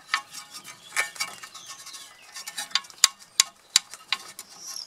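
A spanner clinking against the rear brake caliper and its bracket as it is worked free: a string of irregular sharp metallic clinks, more of them in the second half.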